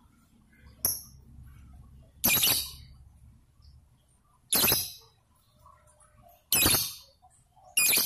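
Fischer's lovebird giving four short, shrill calls, each under half a second, spaced one to two seconds apart. A sharp click sounds about a second in.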